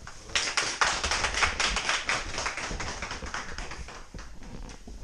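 A small group clapping, loudest over the first couple of seconds and then tapering off.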